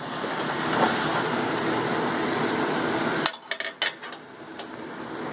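A steady gritty scraping noise for about three seconds that stops abruptly, followed by a few light metallic clinks of a steel plate being set against a welded frame bracket.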